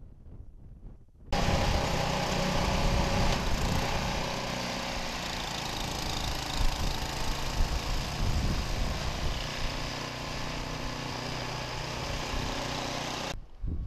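Engine of a snow-clearing machine running steadily. It cuts in abruptly about a second in and stops abruptly just before the end.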